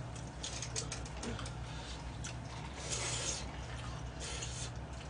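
People eating: utensils clicking against plastic takeout containers, chewing and slurping, with a brief hissy sound about three seconds in and again near the end, over a steady low hum.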